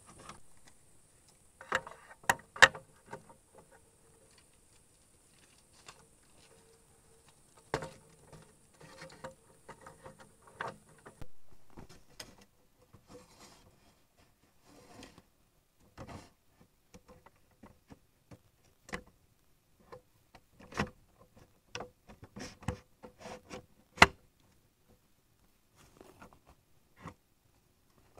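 Irregular taps, clicks and knocks of bamboo and wood being handled and worked by hand, a couple of them much louder and sharper than the rest.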